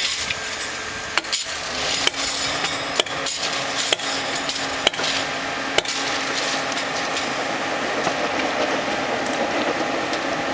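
Sharp metal knocks, about seven of them at irregular intervals in the first six seconds, over a steady hiss at a thermite rail weld. A faint steady hum sets in about two seconds in.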